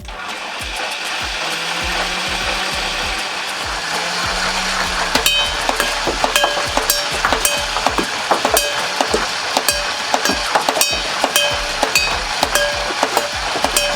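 Motorised Nerf Elite Titan CS-50 blaster firing foam darts at close range at a glass, a steady mechanical whirr throughout. From about five seconds in come repeated sharp ticks, each followed by the same brief ringing tones as darts strike the glass.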